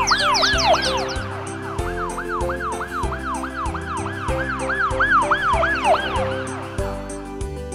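Electronic children's background music: held synth notes over a steady bass, with a siren-like warble that rises and falls about three times a second. Quick high falling sweeps sound in the first second, and the warble drops out briefly near the end.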